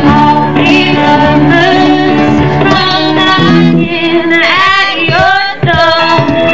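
Live band playing: a woman sings lead over guitar, keyboard and cajón, sliding and wavering through a long held note about two thirds of the way through.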